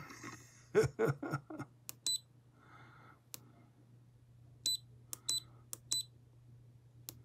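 Short high electronic beeps from an FNIRSI HS-02B smart soldering iron's buzzer as its menu buttons are pressed, each with a light button click: one a couple of seconds in, then three or four in quicker succession near the end.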